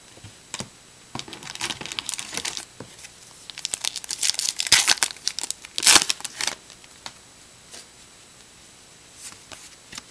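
Sealed trading-card pack wrapper being torn open and crinkled in the hands: a run of sharp crackling rips, loudest about four to six seconds in, then only a few faint rustles as the cards are handled.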